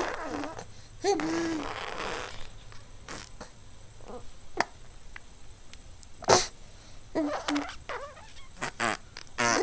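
A baby making funny mouth noises: a short squealing, spluttering noise about a second in, then scattered sharp spluttering pops and brief squeaks, the loudest pop a little past halfway.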